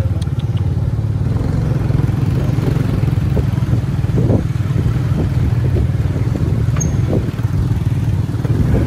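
Motorcycle engine running steadily under way, a continuous low drone.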